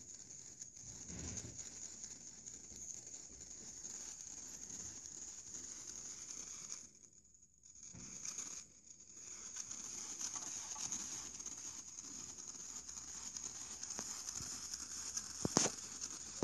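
Small Tesla coil's sparks crackling and hissing from the tip of its wire antenna as a finger and a metal rod draw discharges, with a steady high whine underneath. The sound drops out briefly about seven seconds in and again about two seconds later, and a few sharp snaps come near the end.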